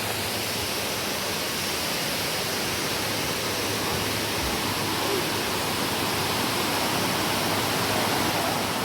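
Rushing water of Dunn's River Falls cascading over rock: a steady, even rush.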